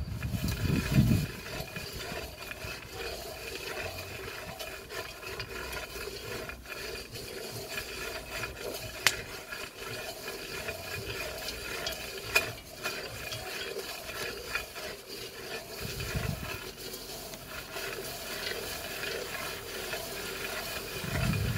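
Cocoa beans being dry-roasted, rattling and scraping in a black metal pot as they are stirred with a wooden stick, with irregular small ticks, two sharp clicks about 9 and 12 seconds in, and brief low rumbles near the start, about 16 seconds in, and near the end.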